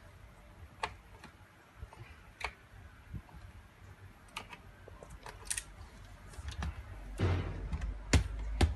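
Small, scattered clicks and taps of a screwdriver working a tiny screw out of a laptop's screen frame, with light handling noise of plastic parts. Near the end there is a rustle and a few louder clicks as the panel is handled.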